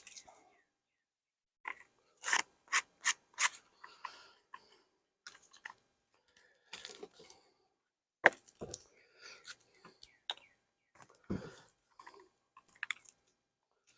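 Handling noises of an oil-filled small hive beetle trap being fitted into a beehive: a quick run of sharp clicks a couple of seconds in, then scattered knocks and scrapes, with one heavier thump later on.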